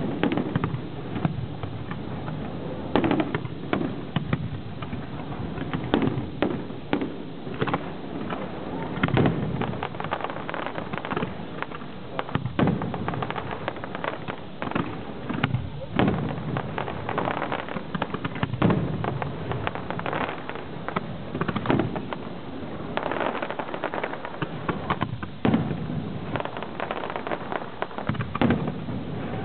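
Fireworks display: aerial shells bursting in a continuous, irregular series of bangs and crackles, several a second at the busiest moments.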